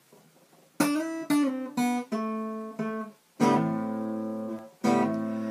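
Acoustic guitar strummed as a song's introduction: a few quick chords about half a second apart, then two full chords left to ring.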